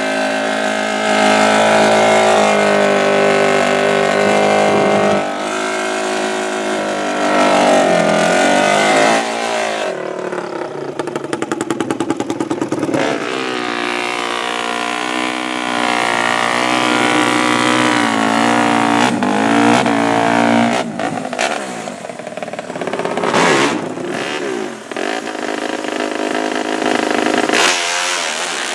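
Drag-racing ATV engines running hard at high revs, the pitch climbing and dropping repeatedly.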